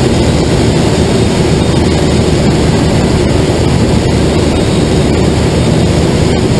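Steady rushing airflow noise in a glider's cockpit in flight, deep and even, without breaks or changes.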